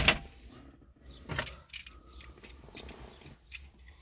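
Clicks and light rattles of a wiring connector and plastic console parts being handled, the loudest click at the very start and another about a second and a half in, with smaller ticks between.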